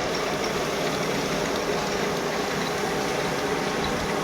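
Steady mechanical running noise, an even hiss-like drone at a constant level with no distinct strokes or tones.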